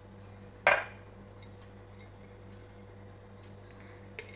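One loud, short knock of kitchenware about a second in, like a utensil or container set down, and a small click near the end, over a steady low hum.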